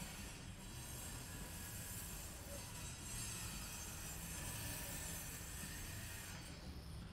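Steady low background hum with a hiss over it, and no distinct sound standing out; the high hiss fades near the end.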